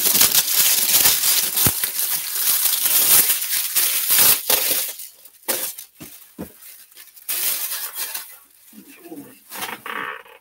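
Packaging being handled and opened: dense rustling and crinkling with many sharp clicks through the first half. Sparser clicks and knocks follow.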